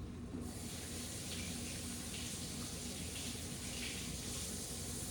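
Kitchen tap running steadily into a sink, starting about half a second in.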